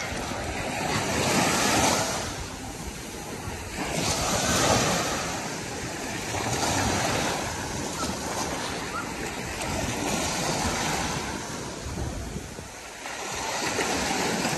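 Small sea waves breaking and washing up a sandy beach, surging and ebbing every few seconds.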